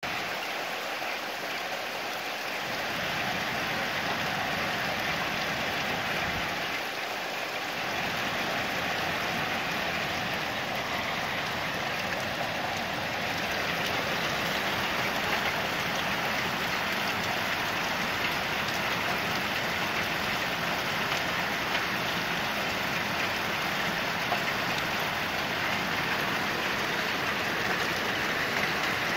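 Steady rain falling, an even hiss of rain on surfaces with a few louder individual drops.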